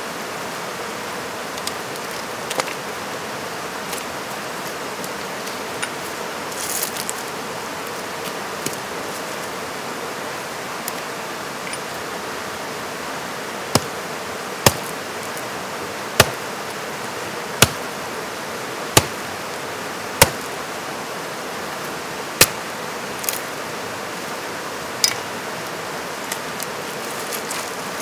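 Hatchet chopping firewood on a log: about nine sharp wooden strikes in the second half, a second or so apart, over the steady rush of a creek with rapids.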